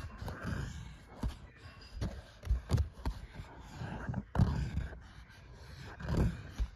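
Cats scuffling under a bed frame: irregular soft thumps and knocks with rustling scrapes as paws and bodies bump the frame and each other.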